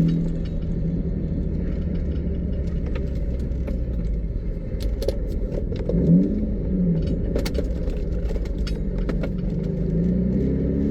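Nissan 350Z V6 engine and road noise heard from inside the cabin while driving, the engine pitch briefly rising and falling about six seconds in. Light clinking and rattling of loose tools in the car comes through over it.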